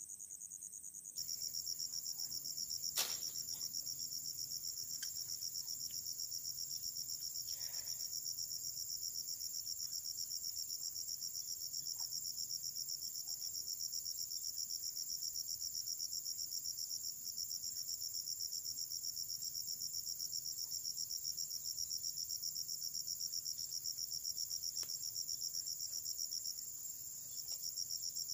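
Insects trilling steadily in a high, fast-pulsing chorus that starts about a second in and dips briefly near the end. A few faint clicks sound over it, the sharpest about three seconds in.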